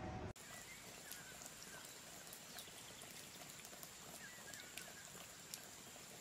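Quiet room tone in a gallery: a faint steady high whine with scattered light ticks and a few faint short warbling chirps.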